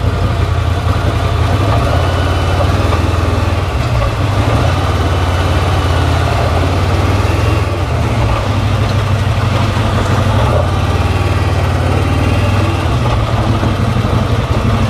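Boat engine idling steadily with a low hum, under a constant hiss of wind and choppy water.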